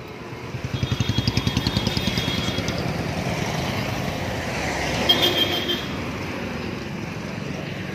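Street traffic heard from a moving vehicle: an engine running with a fast pulsing beat over the first few seconds, under a steady road noise. A short high tone sounds about five seconds in.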